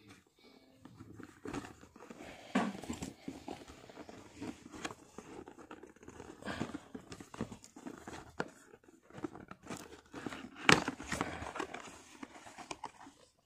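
Cardboard box being opened by hand: a seal sticker picked at and torn, the lid flap pulled open and paper inserts handled. Irregular scrapes, crinkles and small snaps, the sharpest about eleven seconds in.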